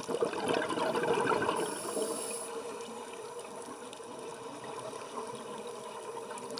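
Underwater sound of a scuba diver's exhaled bubbles rising from the regulator: a crackling burst of bubbling in the first two seconds or so, fading into a steady underwater hiss.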